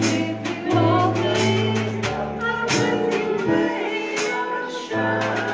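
Live jazz ballad played on a Casio electronic keyboard, with held bass notes and chords, and a snare drum and cymbal keeping time. A woman sings over it.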